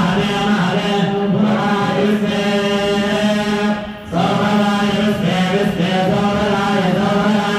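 A group of male priests chanting mantras in unison through microphones, on a steady held pitch. The chant breaks briefly for breath about four seconds in.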